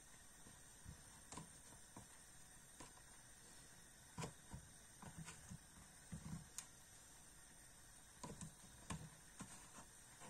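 Mostly near silence, with faint, irregular light taps and knocks as cherry tomatoes are set one by one onto a plate; the loudest tap comes about four seconds in.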